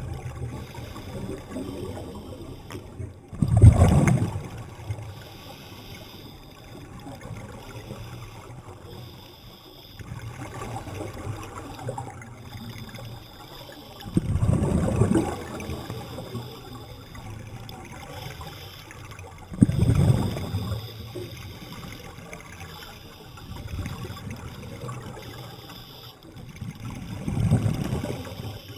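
Scuba diver breathing underwater through a regulator: four gurgling bursts of exhaled bubbles several seconds apart, over a steady low rumble of water.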